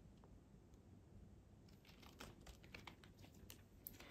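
Near silence, broken by faint scattered clicks and crinkles, mostly in the second half, as a fishing lure in its plastic packaging is handled.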